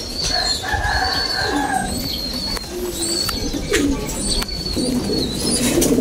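Racing pigeons cooing in their breeding cages, the cooing fullest near the end, with short high chirps repeating about once a second.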